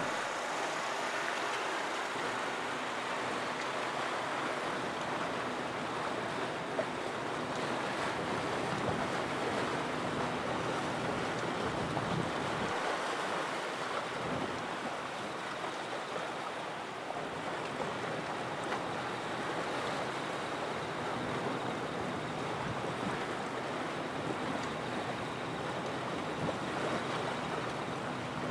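Steady wash of waves against the seashore: an even rushing noise without distinct splashes, with a faint low hum underneath.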